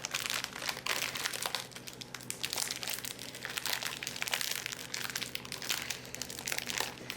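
Packaging crinkling as it is handled in the kitchen: a dense run of irregular crackles that goes on throughout.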